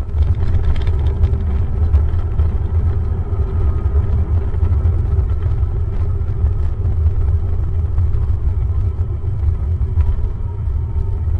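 Cabin noise of an Airbus A321 slowing on the runway after landing: a loud, steady low rumble from the engines and the rolling landing gear, heard from inside the cabin.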